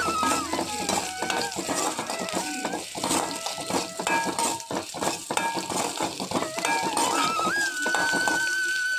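Background instrumental music with a melody that ends on a long, wavering held note, over faint clinks of a spatula stirring in a pan.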